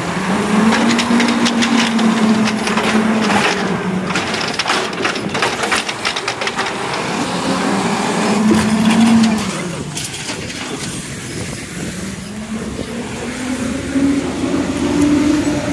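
Automated side-loading garbage truck dumping a recycling cart: the engine revs up and settles three times to drive the arm's hydraulics, with clattering and banging of the cart and its recyclables being emptied into the hopper over the first several seconds.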